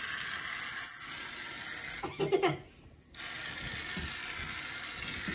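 Aerosol cans of Barbasol shaving cream spraying in a steady hiss. A short vocal exclamation, the loudest sound, comes a little over two seconds in, and the spraying pauses for about half a second after it.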